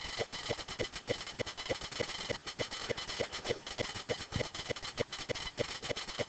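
Calculator buttons being pressed in a run of short taps, about three a second, as 10 × 2³ × (−3)² is keyed in, over a faint steady hiss.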